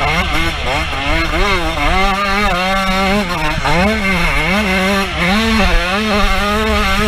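125cc two-stroke motocross bike engine revving hard under racing throttle, its pitch climbing and dropping again and again as the rider opens up, shifts and backs off.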